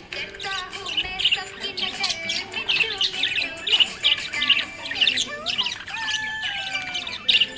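Budgerigars chirping and warbling: a rapid, continuous run of short high chirps, several a second.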